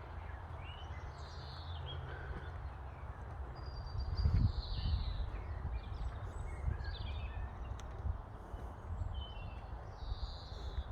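Small songbirds chirping and singing in short scattered phrases over a steady low rumble, which grows louder about four seconds in.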